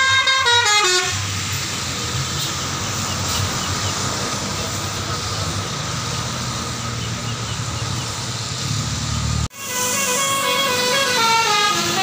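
Tour bus's multi-tone musical air horn ("telolet basuri") playing a stepped, falling tune for about the first second, then the bus's engine and tyres on a wet road as it drives past. After an abrupt cut near the end, another bus's musical air horn plays a stepping tune.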